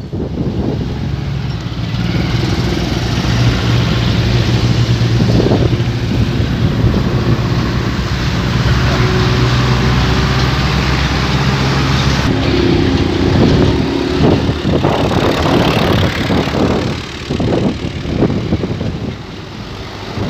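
Diesel tractor engine running steadily under heavy load while pulling trolleys loaded with sugarcane. The engine's note changes about twelve seconds in, and the sound turns rougher and more uneven near the end.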